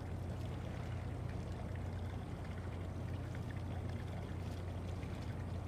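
Steady low rumble of the Hyuga-class helicopter destroyer under way, with a wash of water noise over it.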